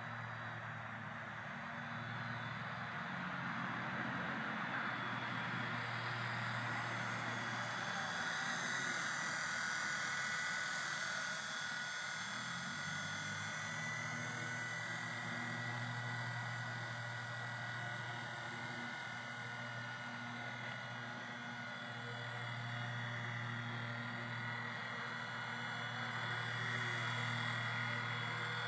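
Small electric RC helicopter (WLToys V911) in flight: a steady motor whine and rotor buzz made of several held tones, swelling and easing gently as it flies.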